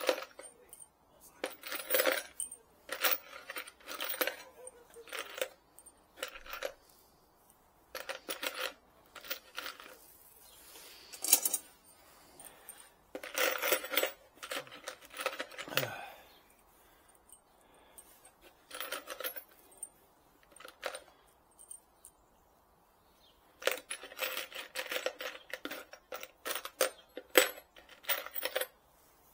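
Loose metal screws clinking and rattling in a plastic tub as a hand rummages through them, in short bursts with pauses of a second or two between, busiest near the end.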